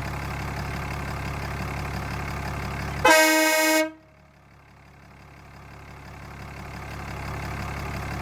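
Truck engine idling, then a single loud blast, just under a second long, from a pair of Trendrun air horns, held at a steady pitch and cut off sharply. The idle drops away after the blast and slowly fades back in. The blast peaked at about 121 decibels on a sound meter roughly a foot from the bell.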